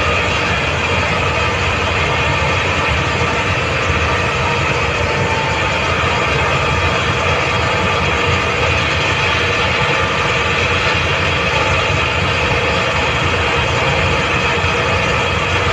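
Hitachi industrial screw air compressor running steadily: a loud, unchanging machine noise with a few faint steady tones over it.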